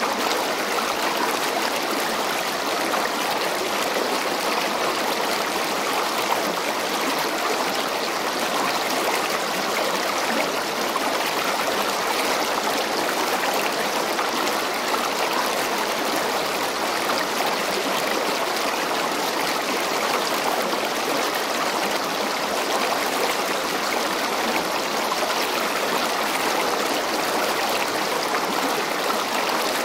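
Steady rushing of flowing river water, an even noise with no breaks or single events.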